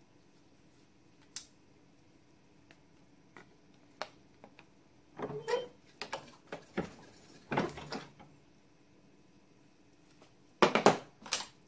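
Bench vise being worked to press ball bearings into a mounting plate: scattered clicks, then a run of clunks and rattles from the vise handle and jaws about five to eight seconds in, and a louder cluster of sharp knocks near the end.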